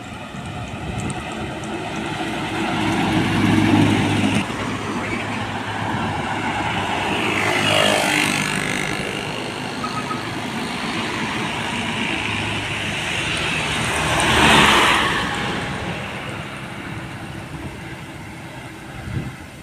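Heavy diesel trucks, among them loaded dump trucks, passing close by one after another. Their engines and tyres swell and fade with each pass, about four, eight and fourteen seconds in, and the last pass is the loudest.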